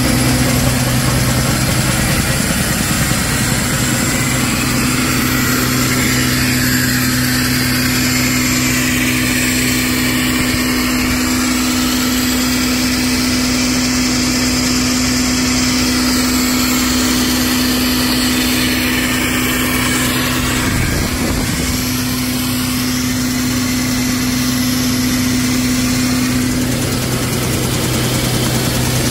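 Z-fold hand towel production line running: a steady machine hum with a constant low tone, from the folding rollers and the line's vacuum blower, easing slightly near the end.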